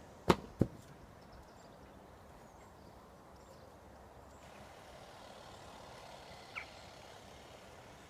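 Two sharp clicks less than half a second apart, then a steady faint outdoor background hum, with a brief chirp near the end.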